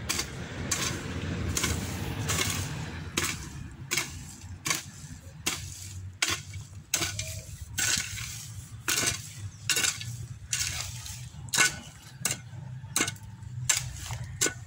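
A garden hoe chopping into wet soil to cut out weeds: a steady rhythm of sharp strikes, about three every two seconds, with the blade scraping through earth between them.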